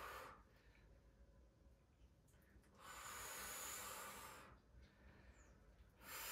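A person breathing out: a long, hissing exhalation about three seconds in and another starting near the end. The breaths come at the pace of the slow band curls, one with each effort.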